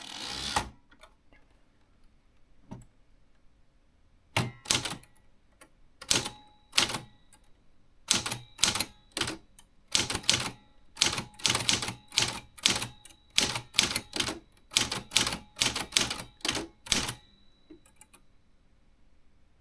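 Remington Quiet-Riter Eleven manual typewriter being typed on: sharp keystrokes at about two a second, unevenly spaced, begin a few seconds in and stop near the end. A brief noisy sound comes at the very start.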